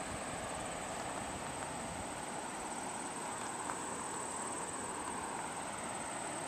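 Steady outdoor ambience: a constant high-pitched insect trill over an even background hiss.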